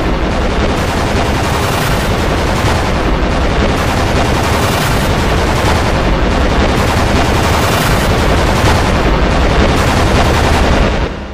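Many video soundtracks playing at once, piled into one loud, dense, even wall of noise in which no single sound stands out. It fades away at the very end.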